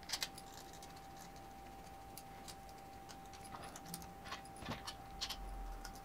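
Faint scattered clicks and ticks of a precision screwdriver driving M3 steel bolts into slightly undersized holes in a 3D-printed plastic block.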